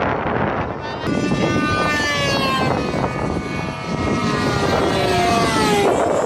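Radio-controlled model airplane engine and propeller whining, its pitch falling steadily for several seconds.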